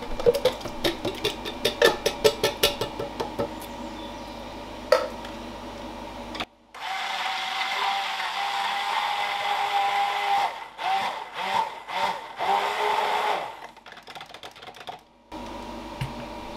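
A run of clicks and knocks, then a small personal blender runs steadily for about seven seconds, puréeing tomatoes. Near the end it switches on and off in short pulses.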